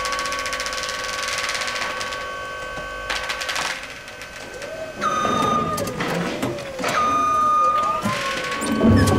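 Electric stand-up reach forklift's motor whining at a steady high pitch for the first few seconds, then after a brief pause whining again with a lower tone that wavers up and down as it moves, with clicks and clanks. Near the end a deep drum of the score comes in.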